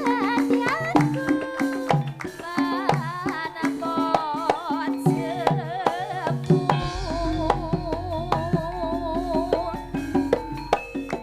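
Javanese gending played live by a gamelan-style ensemble: hand-drum strokes repeating in a steady pattern under a wavering, vibrato-laden melody line. A deep sustained low tone comes in about seven seconds in.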